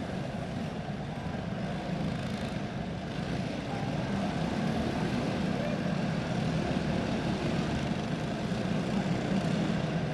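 A pack of racing karts with box-stock Predator small engines running at low, even speed under caution, a steady overlapping engine drone.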